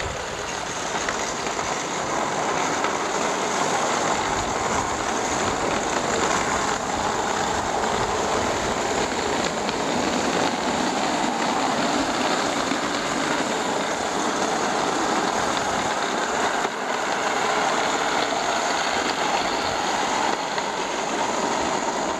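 Steady city street traffic noise, an even rushing hum that runs without a break.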